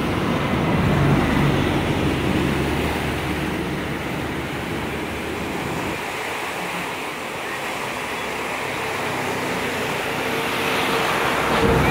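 Kaveri river in flood: fast brown floodwater churning and rushing against a concrete embankment, a steady noisy rush of water that swells a little about a second in and again near the end.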